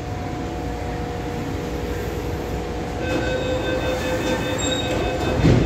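Adtranz-CAF electric multiple unit metro train starting to pull away from the platform: a steady low rumble, joined about three seconds in by a steady multi-toned whine from the traction motors as it gets under way. A low thump near the end is the loudest sound.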